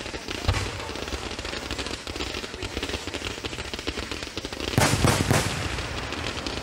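Fireworks going off: a dense, rapid crackling like gunfire, with a sharp bang about half a second in and a cluster of loud bursts about five seconds in.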